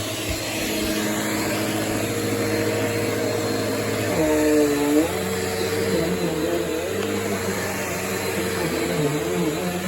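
Bissell PowerForce Helix Turbo bagless upright vacuum running steadily. About four seconds in, its tone dips and then wavers as the load on the motor changes.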